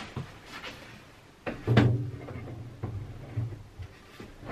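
Wooden cabinet door being test-fitted and swung on its hinges: a few light clicks, then a loud knock with a low rumble after it, and another knock near the end.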